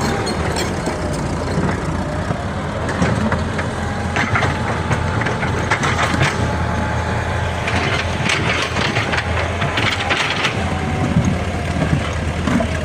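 Caterpillar D4E bulldozer's diesel engine running steadily under load, with irregular crunching and cracking of rock being pushed and broken under the blade and tracks.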